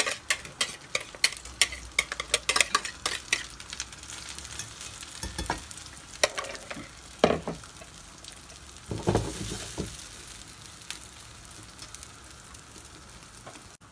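Beaten egg, potato and cheese mixture sizzling as it goes into a hot oiled frying pan. For the first few seconds quick clicks and scrapes of a utensil against the bowl and pan, then a steady sizzle with a few soft knocks.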